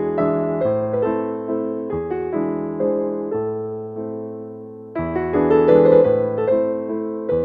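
Slow piano music: notes and chords ring out and fade away, and a louder group of notes comes in about five seconds in.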